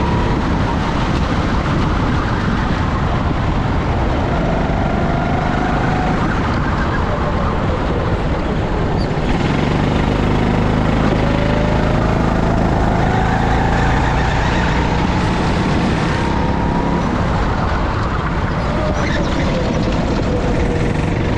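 Go-kart engine at speed on a lap, its pitch climbing several times as it revs up and then dropping back, over a heavy rumble of wind and vibration on the onboard microphone.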